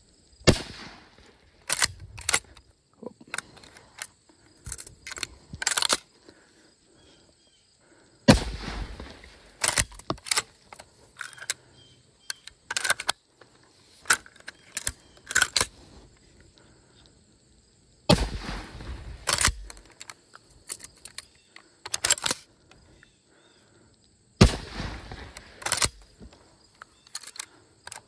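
A Winchester Model 1901 10-gauge lever-action shotgun fired three times with black-powder shells. Each shot is a loud boom that trails off over about a second. In between come sharp metallic clicks and clacks as the lever is worked and fresh shells are loaded.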